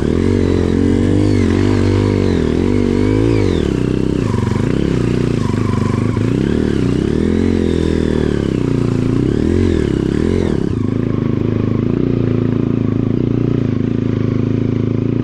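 230 cc trail motorcycle engine being ridden off-road, revving up and down as the throttle is worked, its pitch rising and falling every second or so.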